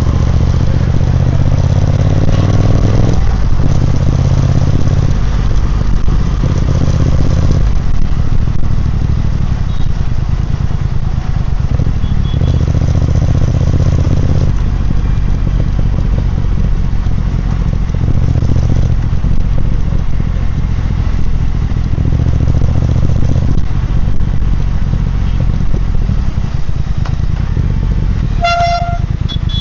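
Triumph Speed Twin 1200's parallel-twin engine and exhaust running on the move, its note swelling and easing off several times as the throttle is opened and closed. A horn toots briefly near the end.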